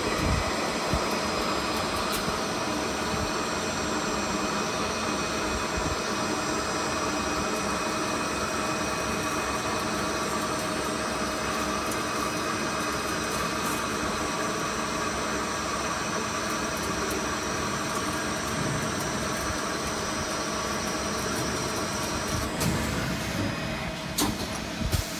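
CNC lathe running while machining a metal bar, a steady machine noise with several high whining tones. Near the end the highest whine cuts off and a few short knocks follow.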